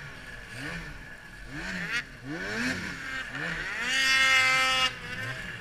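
Ski-Doo 800 E-TEC two-stroke snowmobile engine revving up and down in quick throttle blips while riding through deep powder, then held at high revs for about a second near the end before dropping off.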